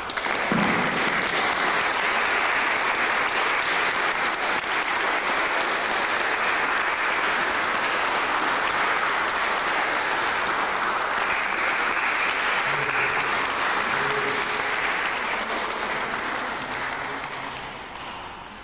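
Audience applauding, building up within the first second, holding steady, and dying away over the last few seconds.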